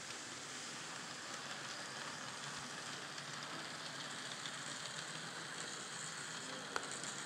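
N scale model trains running past on the layout track: a steady hissing whir of the small motors and wheels on the rails, with a single click near the end.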